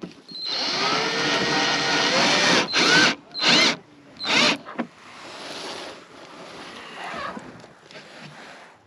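DeWalt cordless drill running under load into a plastic nest box on OSB board: one long run of about two seconds, its pitch wavering, then three short bursts.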